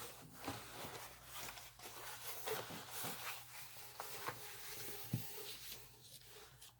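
Faint rustling with scattered light taps, one a little louder about five seconds in: a rolled diamond-painting canvas and its backing paper being handled.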